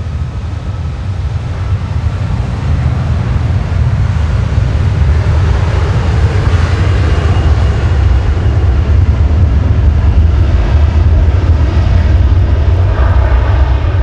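Jet engines of an Avianca Cargo widebody freighter running close by on the ground: a loud, deep rumble that builds over the first several seconds and then holds steady.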